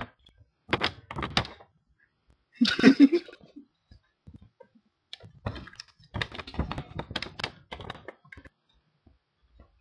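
A sheet of drawing paper handled right against the camera and its microphone: crackling, rustling and knocking in three short spells, the longest in the second half.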